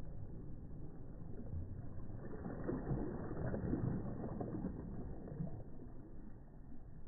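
Small waves breaking softly close by, a low hiss of wash that swells to a peak about three to four seconds in and then falls back.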